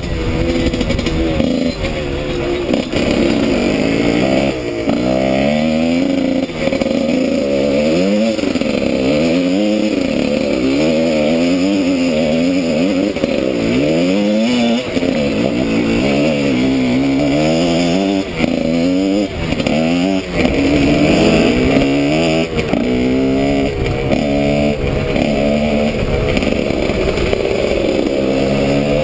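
Husqvarna WRE 125 two-stroke enduro engine, with a Giannelli exhaust, heard from the rider's helmet camera, revving up and dropping back again and again as the rider works the throttle and gears.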